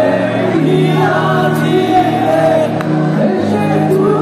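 Live rock band playing with a lead singer at the microphone and many voices singing along.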